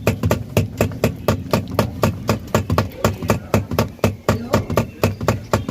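Rapid, steady hammer blows, about four to five a second, on the pulsator of a Whirlpool washing machine to loosen it. The pulsator is seized onto the shaft of a worn-out gearbox.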